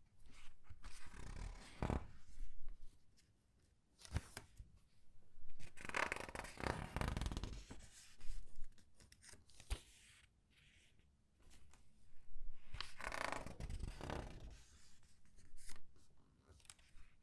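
Comic book pages being turned slowly and squeezed by hand: paper rustling and crinkling in three main swells, with small crackles and taps between them.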